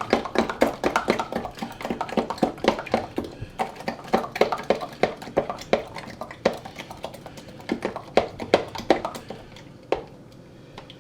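A utensil stirring a thick marmalade, Dijon mustard and spice sauce in a bowl, clinking and scraping rapidly against the sides. The stirring thins out and stops about nine or ten seconds in.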